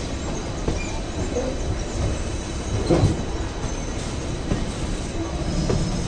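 Passenger train running on the rails: a steady low rumble with scattered knocks, and a louder thump about halfway through.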